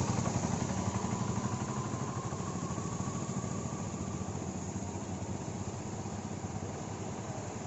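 An engine running steadily with a fast, even pulse, slowly growing fainter.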